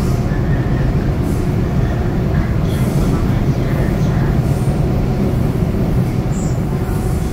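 Metro train running, a steady low rumble with a faint steady hum above it.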